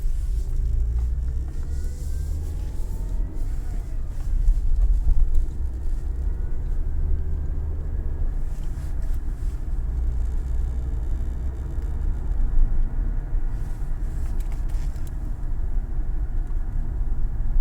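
2008 Ford Mondeo running, heard as a steady low rumble, with the engine pitch rising and falling in the first few seconds.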